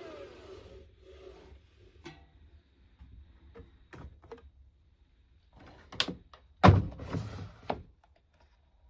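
Indesit IWC6165 washing machine being handled: scattered light clicks, then a cluster of thunks about six to eight seconds in, the loudest near seven seconds.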